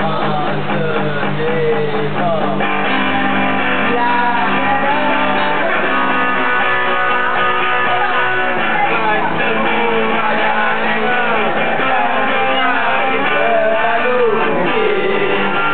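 A song played live on guitars, an electric guitar among them, with a voice singing the melody over the strumming.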